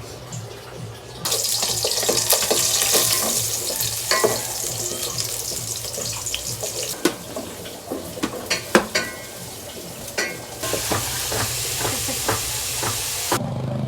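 Kitchen work: a steady hiss that starts abruptly about a second in and cuts off near the end, with several sharp clinks of utensils against pots or dishes through the middle.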